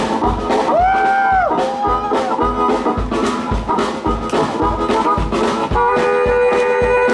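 Live blues band playing over a steady drum-kit beat, with a blues harmonica holding a bent note about a second in; from about six seconds, held chords sustain over the beat.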